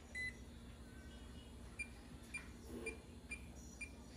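Electronic key beeps from a wall oven's touch control panel as it is set to convection bake at 350°F: one beep at the start, then five short, higher beeps about half a second apart.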